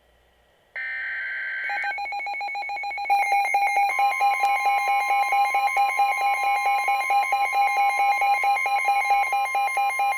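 Emergency Alert System header opening a severe thunderstorm warning: a short burst of warbling digital data tones, then the loud, steady alarm-like attention tone, which cuts off near the end.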